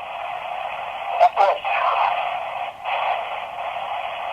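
S Box spirit box sweeping through radio stations: a steady, thin, tinny hiss of static, broken by a brief clipped scrap of a voice just over a second in and a short dropout a little before the three-second mark.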